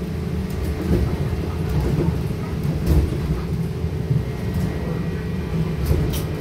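Cabin noise of a Trolza-5265.00 Megapolis trolleybus on the move: a steady low rumble from the body and road with rattling and a faint steady high whine. Two sharp knocks come through, about halfway through and near the end.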